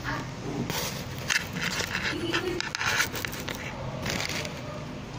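Plastic courier bag crinkling and rustling in irregular bursts as it is handled close to the microphone.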